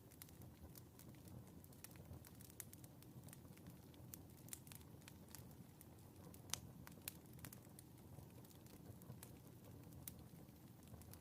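Wood fire in a fireplace crackling faintly: irregular small pops over a low steady rumble, with a sharper pop about six and a half seconds in.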